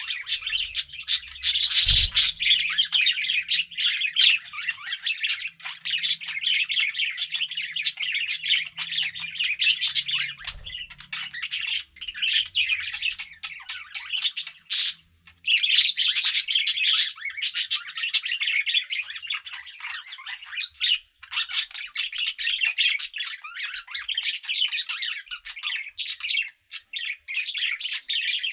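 A flock of pet budgerigars chattering and chirping steadily, with many short overlapping calls and a few louder squawks, with a soft low thump about two seconds in.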